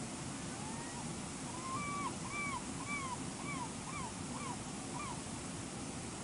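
A gull calling a series of about eight short, arched, yelping notes, about two a second, over the steady rush of a waterfall.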